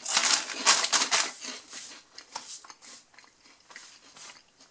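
Plastic snack bag crinkling as it is handled and put down: a dense crackle for the first second or so, then a few fainter, scattered rustles that die away.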